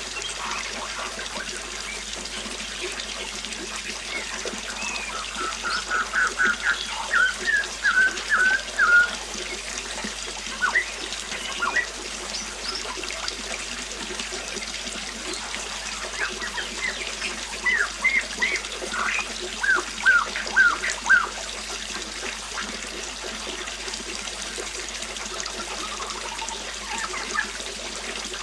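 Flowing river water running steadily, with birds singing over it. The loudest part is two runs of quick, repeated short chirps, one a few seconds in and one past the middle, with scattered single notes elsewhere.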